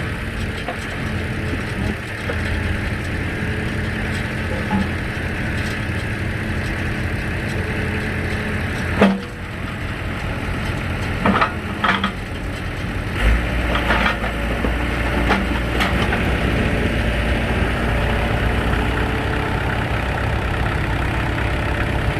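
An engine runs steadily, powering a hydraulic log splitter, with a few sharp knocks around the middle. The engine's low drone grows stronger about thirteen seconds in.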